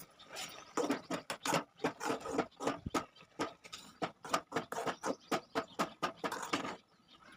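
A quick run of short, irregular clicks and taps, several a second, that stops about 7 seconds in.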